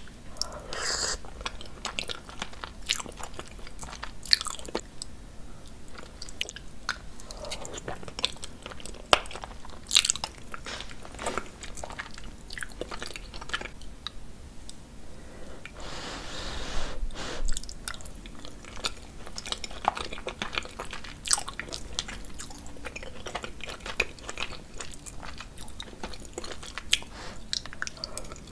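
Close-miked chewing and biting of cheesy lasagna: wet mouth sounds with many sharp clicks and smacks.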